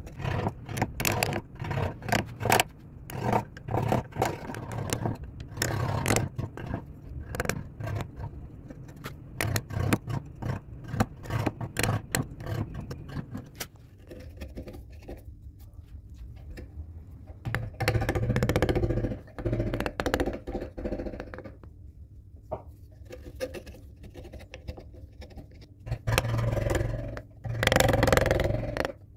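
Carving gouge pushed by hand through wood, cutting and scraping in a quick run of short strokes, then slower with a few longer, louder cuts.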